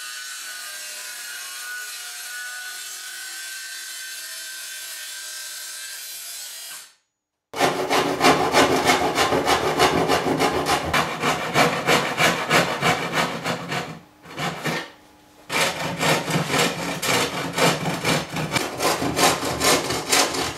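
A Bosch circular saw runs steadily along its guide rail through a softwood board for about seven seconds and stops abruptly. Then a hand saw cuts through a board with fast back-and-forth strokes, pauses briefly about two-thirds of the way in, and resumes.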